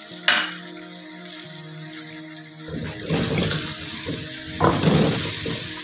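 Onions, tomatoes and spices frying in hot oil in a steel wok, with one sharp tap about a third of a second in. From about three seconds in, a wooden spoon stirs and scrapes through the pan and the sizzling grows louder.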